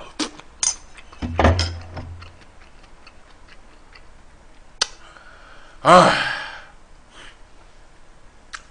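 Scattered sharp clicks and smacks of a person eating, with a fuller mouth sound about one and a half seconds in. Then a loud, drawn-out 'ah' of satisfaction about six seconds in.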